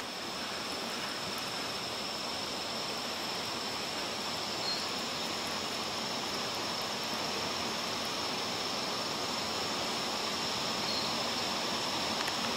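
Steady rush of flowing water, with a high, unbroken insect drone over it.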